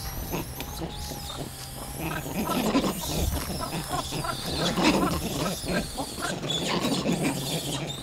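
Vervet monkeys fighting: a dense, irregular run of short grunting, chattering and squealing calls from several monkeys at once, swelling and easing over the seconds.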